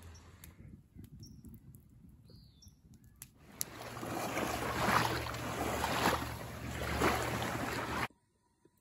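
Small waves lapping at a pebbly lake shore, swelling about once a second over a steady low rumble. The sound cuts off abruptly near the end.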